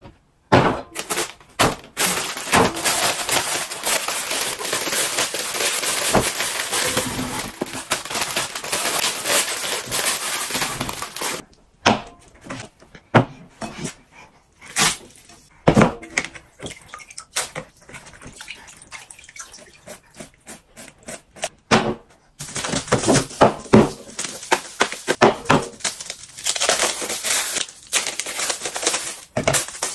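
Kitchen handling sounds: a steady hiss for several seconds near the start, then scattered clicks and knocks of bowls and a salad spinner set on a table, and in the last several seconds the crinkling and tearing of a chocolate bar's wrapper being opened.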